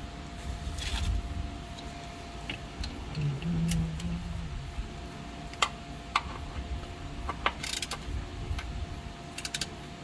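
Scattered metallic clicks and clinks of hand tools while the oil drain plug is threaded back into a Porsche 997's sump, with a brief low hum about three seconds in.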